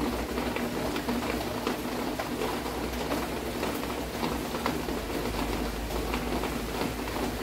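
Heavy monsoon rain falling outside: a steady hiss with faint scattered ticks.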